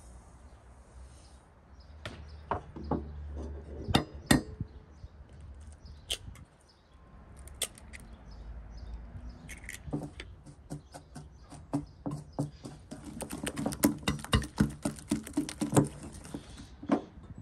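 A few separate knocks and clinks of ingredients going into a bowl, then a silicone whisk beating eggs, sugar and oil in an enamel bowl: a fast, dense run of clicks and taps against the bowl's sides, thickest in the last few seconds.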